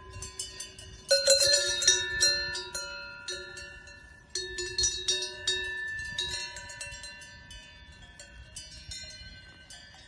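Cowbells worn by grazing cows clanking irregularly, each strike ringing on. The clanging is loudest about a second in and again near the middle, then thins out towards the end.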